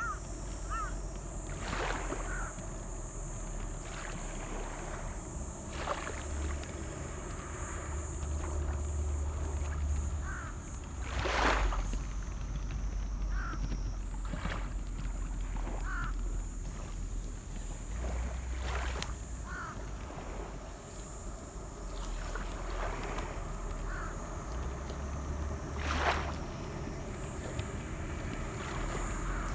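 Outdoor rural ambience: wind rumbling on the microphone under a steady high hiss, with short chirping calls every few seconds and a few brief rustles.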